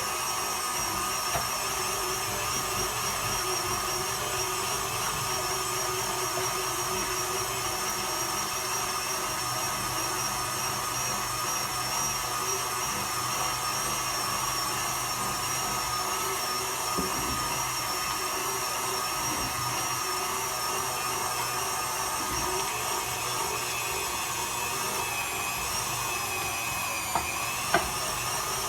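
Electric meat grinder motor running steadily while grinding soaked chickpeas with onion and garlic, a constant high whine, with two sharp knocks near the end.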